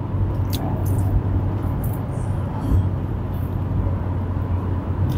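Steady hum of a car's engine and tyres heard from inside the cabin while driving on the highway, strongest in a low drone, with a few faint high crackles over it.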